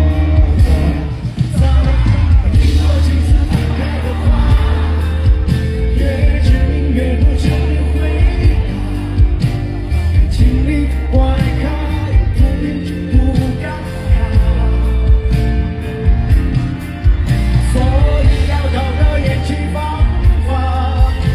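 Live pop-rock band playing loudly, with singing over heavy bass and drums.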